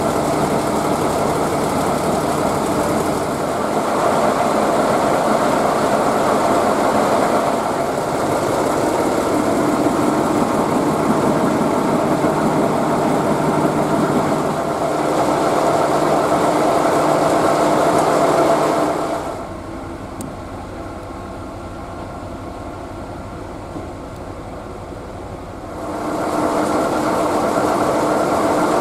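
2М62У diesel locomotive's 14D40 two-stroke V12 diesel engine running steadily in its engine room, with a constant mechanical drone. Past the middle it turns quieter for about six seconds, then comes back to full level.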